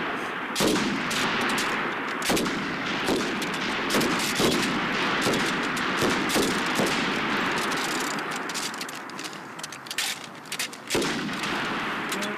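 Several 5.56 mm M249 light machine guns firing along a range firing line during zeroing: irregular single shots and short bursts from different guns, with echo between the shots.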